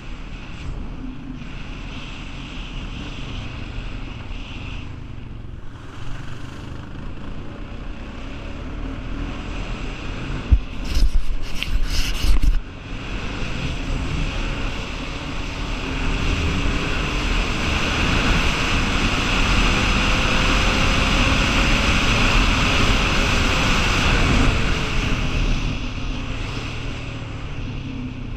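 Honda 420 ATV's single-cylinder four-stroke engine running under way, with heavy wind noise on the microphone. Loud buffeting bursts come about eleven to twelve seconds in, and later the engine pitch rises and falls as the quad picks up speed.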